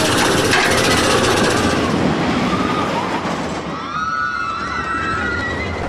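Sound effect for an animated logo intro: a loud, steady rush with a rumble underneath. From about three seconds in, several squealing tones glide up and down.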